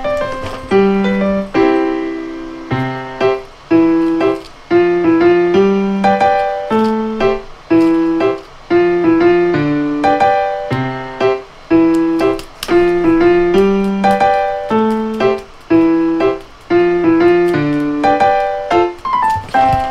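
Background piano music: a repeating melody of evenly paced notes, each struck and fading.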